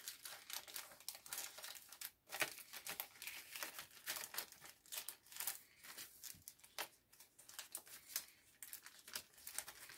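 Thin plastic bag crinkling in the hands, with irregular faint crackles and rustles as it is handled and opened.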